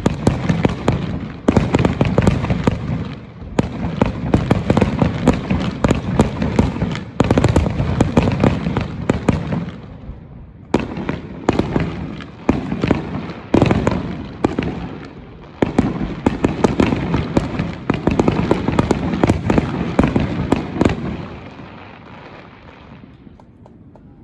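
A fireworks display: a barrage of booming shell bursts and dense crackling, with new volleys every second or two, dying away near the end.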